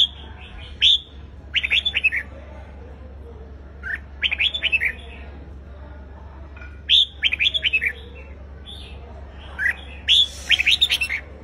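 Red-whiskered bulbul singing: repeated short phrases of quick, bright whistled notes, each phrase a second or less, with pauses between. This is the bird's competitive song.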